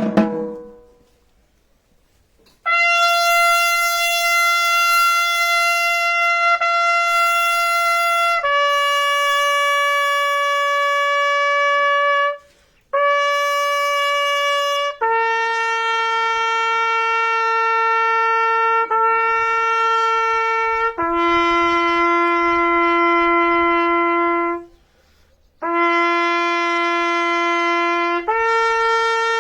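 A drum roll dies away, then after a short pause a trumpet plays a slow call of long held notes, each several seconds long, stepping down in pitch with brief breaks between some of them.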